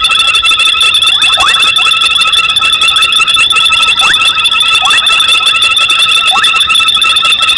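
Dense night chorus of frogs: a steady, high, ringing trill, with short downward-sliding calls about once a second over it.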